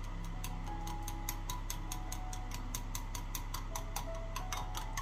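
A utensil clinking quickly against a bowl, about five even strikes a second, as yogurt is whisked with salt, cumin and water. Soft background music with held notes plays underneath.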